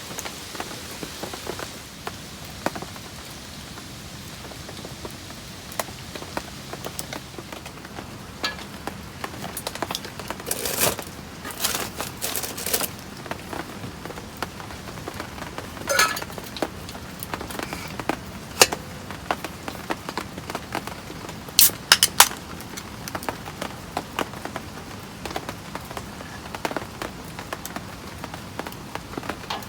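Heavy rain falling steadily, with scattered sharp knocks and clinks on top, a busy run of them about eleven seconds in and the loudest clacks about twenty-two seconds in.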